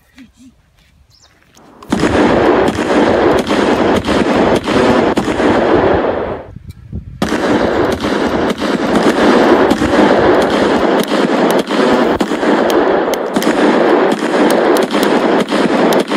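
Rapid automatic gunfire, fired in two long bursts: the first starts about two seconds in and breaks off after about four and a half seconds, and the second starts a moment later and keeps going.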